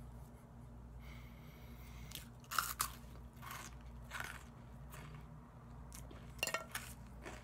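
A person chewing toast close to the microphone, with sharp crunching bites in two clusters, about two and a half seconds in and again near the end, and softer chewing between.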